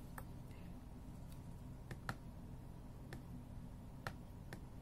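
Quiet room with a low steady hum and about six faint, sharp ticks at uneven intervals, two of them close together about two seconds in.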